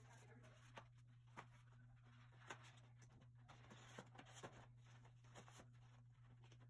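Faint rustling and light taps of a rolled paper art print being unrolled and pressed flat by hand, with a book set down on it, over a low steady hum.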